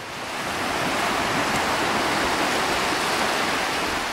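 A steady rushing noise like surf or running water, swelling in over about the first second.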